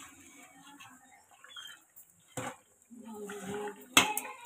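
A perforated metal spatula stirring chicken in a steel pot, knocking sharply against the pot twice: once about halfway through and louder near the end.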